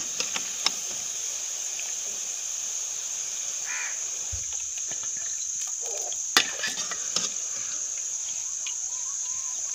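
Crickets singing in one steady high drone over the low fizz of okra bajjis deep-frying in oil in an aluminium kadai. A slotted ladle clinks sharply against the pan a few times, loudest about six seconds in.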